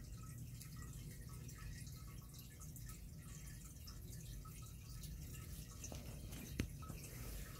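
Faint dripping and trickling of aquarium water over a steady low hum, with one sharp click about six and a half seconds in.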